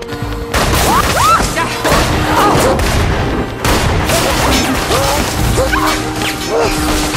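Film action soundtrack: repeated pistol gunshots and crashing impacts over tense, sustained music, starting about half a second in.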